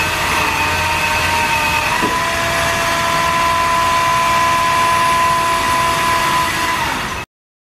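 A machine motor running with a steady high whine, its pitch stepping up slightly about two seconds in, cutting off suddenly near the end.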